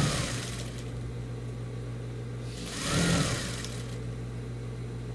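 Sewing machine stitching in two short runs, about three seconds apart, its motor speeding up and slowing down each time, over a steady hum.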